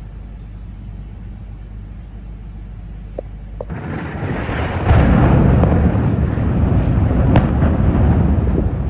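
A low steady hum, then, about four seconds in, the blast of an airstrike explosion: a heavy, loud rumble that swells about a second later and goes on for several seconds.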